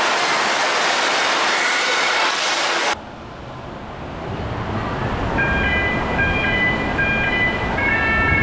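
Water rushing through the enclosed fiberglass flumes of a funnel slide as a loud, steady hiss, which cuts off about three seconds in. After the cut the hollow rumble of an indoor water park takes over, and from about five seconds in a mat racing slide's electronic start-gate tones sound in short pitched notes, stacked several at once.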